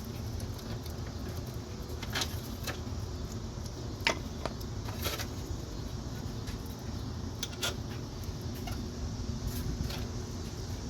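Scattered light metallic clinks and taps of bolts and tools against a car's wheel hub as the hub assembly's mounting bolts are being started, over a steady low hum.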